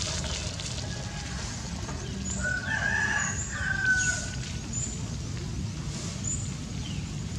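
A rooster crows once, a drawn-out call starting about two seconds in, over a steady low rumble with short high chirps.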